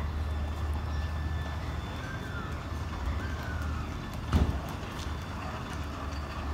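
City street ambience: a steady low rumble of traffic with a few faint high chirps or calls, and a single sharp thump a little past four seconds in.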